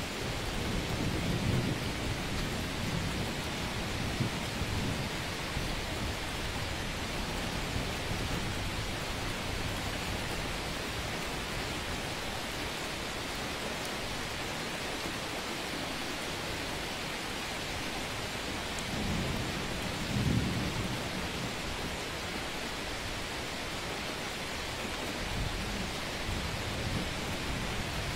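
A steady hiss with a few low rumbling swells, about a second in, around twenty seconds in and again near the end.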